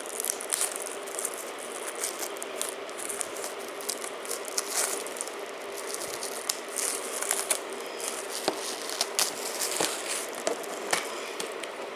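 A plastic Blu-ray case being opened and handled: a run of irregular clicks and rattles with crinkling.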